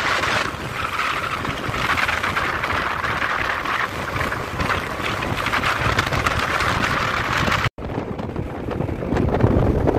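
Wind buffeting the microphone over road and engine noise from a moving vehicle travelling at speed. A split-second gap about three-quarters of the way through, where the recording cuts.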